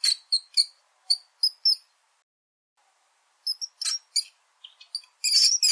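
Mouse squeaking: a run of short, high-pitched squeaks that stops for about a second and a half midway, then starts again and comes thicker near the end.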